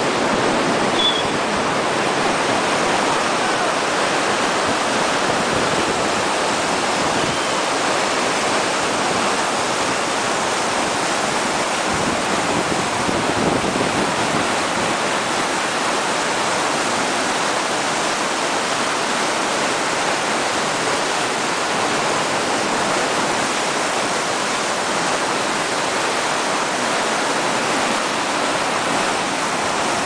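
A flooded, swollen river rushing steadily past, a continuous noise of fast churning water.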